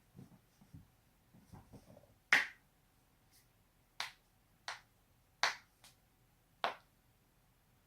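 Joints being deliberately cracked: a soft rustle of movement, then five sharp pops spaced a second or so apart, the first the loudest.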